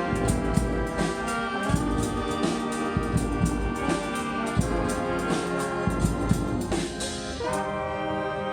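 Brass band playing live: trumpets and trombones over a steady drum beat. Near the end the drums drop out and the horns hold a sustained chord.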